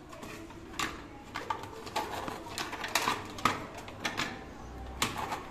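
Footsteps on an indoor staircase: irregular sharp steps, about two a second, some louder than others.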